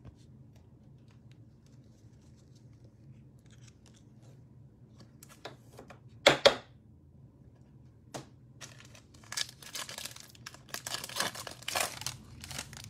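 Foil wrapper of a basketball trading card pack being torn open and crinkled in the hands, a dense run of crackling over the last few seconds. A brief loud crackle of the wrapper comes about halfway, after a quiet stretch of light card handling.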